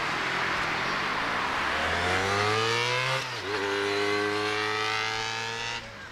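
Jet roar of a Boeing 777 freighter's two GE90 engines at takeoff thrust, with a road vehicle's engine over it. The vehicle rises in pitch, breaks off about three seconds in as if changing gear, then holds a steady pitch. The sound drops away abruptly near the end.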